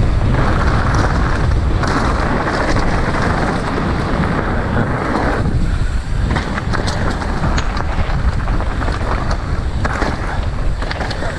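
Mountain bike riding down a trail in strong wind: heavy wind buffeting on the microphone over a low tyre rumble. About halfway through the rushing eases and short clicks and knocks from the ride come through.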